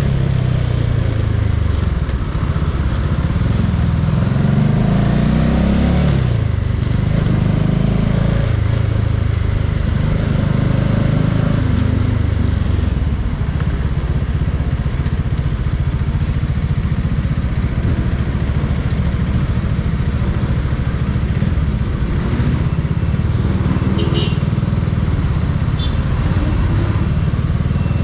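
Bajaj Dominar 400's single-cylinder engine pulling under way, its pitch rising as it accelerates and dropping at a gear change about six seconds in, then rising and easing again, over steady wind and road noise.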